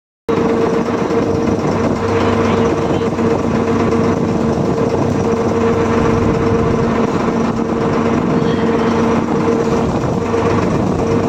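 Motorboat engine running steadily with a constant hum, over an even rush of noise from the boat moving through the water.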